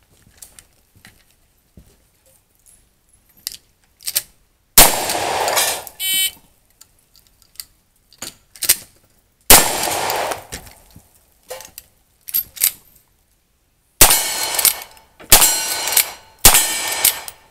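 Gunshots on a cowboy action shooting stage: two heavy single shots about five seconds apart, each with a long echoing decay. Near the end come four quicker lever-action rifle shots about a second apart, each followed by the ring of a struck steel target. Light clicks and clanks of gun handling come between the shots.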